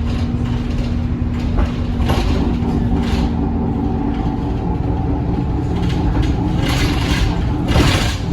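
Single-decker bus running in service, heard from on board: a steady low engine rumble with a humming tone in the first two seconds and several short rushes of noise, about 2, 3, 7 and 8 seconds in.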